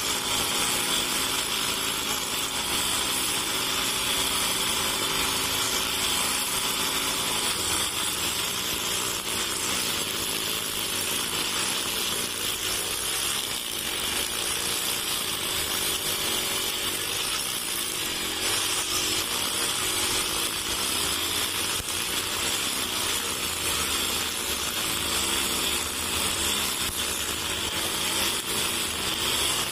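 Honda GX four-stroke backpack brush cutter running steadily at cutting speed, its nylon trimmer line spinning through short grass.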